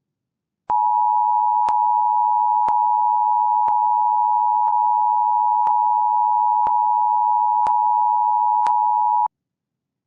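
Emergency Alert System attention signal: a steady two-tone alert tone (853 and 960 Hz together) starting about a second in and cutting off sharply near the end after about eight and a half seconds, with a faint tick about once a second. It marks the start of an EAS alert, here an Amber Alert.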